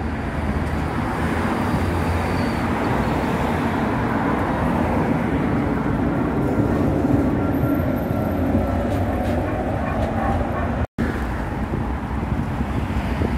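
V3A-93 CH PPC articulated tram moving alongside the platform, its wheels and running gear rumbling on the rails with a faint whine. About eleven seconds in, it cuts to road traffic noise and wind on the microphone.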